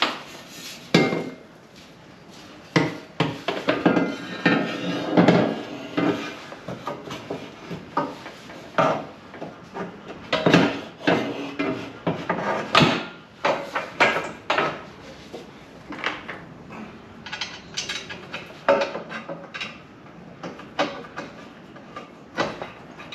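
Irregular hammer blows and metal clanks from tools working on metal, coming in uneven clusters with pauses between.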